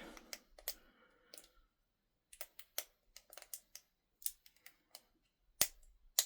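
Small metallic clicks and taps of a pick and tensioner working a Master Lock 131 30mm padlock, irregular and quiet, with two sharper clicks near the end.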